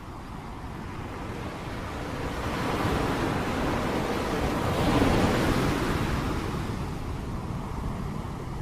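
Steady rain noise that swells into a louder surge about five seconds in, then eases off again.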